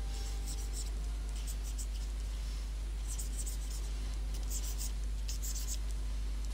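Stylus scratching across a graphics tablet in short, irregular sketching strokes, over a steady low electrical hum.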